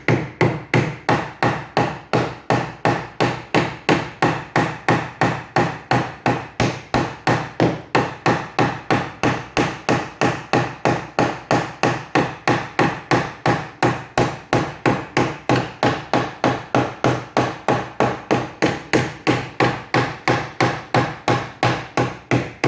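Light hammer hits, about three a second, peening the cut end of a copper rivet pin to spread it over its cap into a rounded head. The even tapping stops right at the end.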